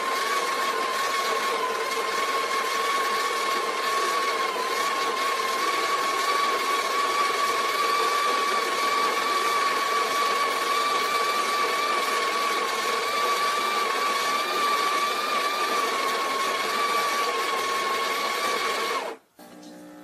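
The built-in conical burr grinder of a Breville Barista Express grinding coffee beans into the portafilter: a steady motor whine that stops abruptly near the end.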